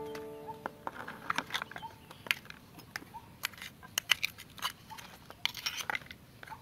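Metal spoons scraping and clicking against mussel shells as the cooked meat is scooped out, in irregular sharp clicks.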